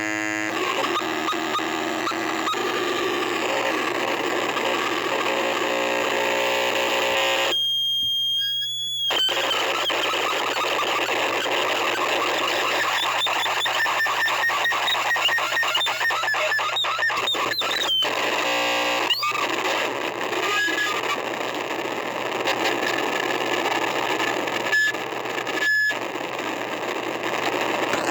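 Harsh noise music: a cheap microphone driven through distortion and gain pedals and a delay pedal, giving a dense, loud wall of distorted noise with pitched feedback tones. About eight seconds in it drops out to a single high squealing tone for about a second, then turns into fast stuttering, pulsing noise with brief sharp squeals.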